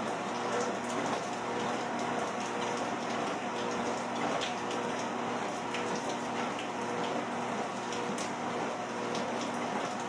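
Steady rain falling, with a treadmill's motor and belt running underneath as a steady hum.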